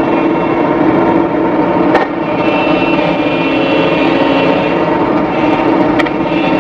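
Diesel engines of a mud-stuck JCB tracked excavator and a forestry machine towing it out, running steadily under load. There is a sharp click about two seconds in and another near the end.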